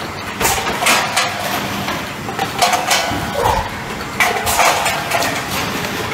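Automatic PET bottle blow molding machine running: a steady mechanical din with irregular sharp clatters about once a second.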